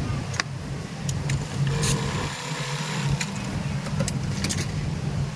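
Industrial sewing machine running with a steady hum that drops away briefly near the middle and then resumes, with a few sharp clicks.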